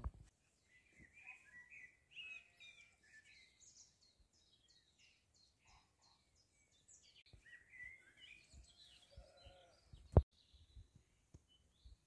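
Small songbirds singing in quick high chirps and trills, with a single sharp knock about ten seconds in.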